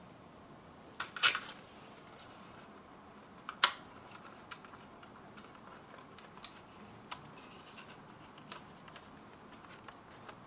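Small clicks and taps of plastic model-kit parts being handled and set down on a workbench cutting mat: a short cluster about a second in, one sharper click a little before four seconds, then scattered light ticks.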